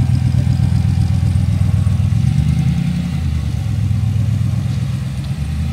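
AK Cobra replica's engine running at low revs through its side exhausts as the car creeps forward, with a fast, lumpy pulse. The revs rise briefly about two seconds in.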